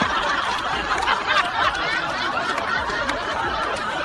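Several people laughing and chuckling at once, their voices overlapping into a steady mass of laughter.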